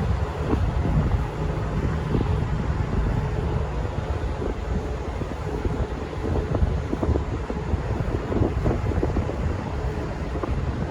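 Wind buffeting the microphone over the low rumble of a V/Line train pulling out of the station.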